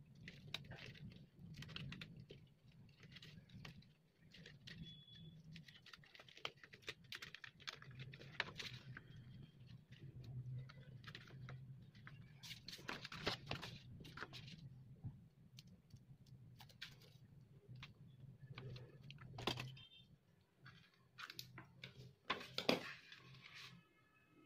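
Faint rustling, tapping and light scraping of paper strips and craft materials handled on a tabletop, over a low steady hum. A few louder sharp clicks stand out in the second half.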